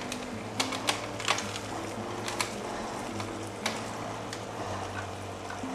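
Soft background music with long held low notes that change every second or so, over a scattering of light clicks and taps.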